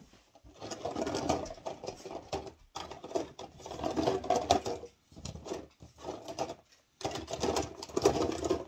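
Hands rummaging through a basket of empty plastic Scentsy wax-bar packs: a dense, fast rattling and crinkling of plastic, coming in several stretches with short pauses.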